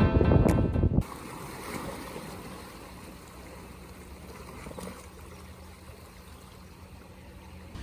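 Background music that cuts off about a second in, followed by a steady, quiet rushing ambience with a faint low hum underneath.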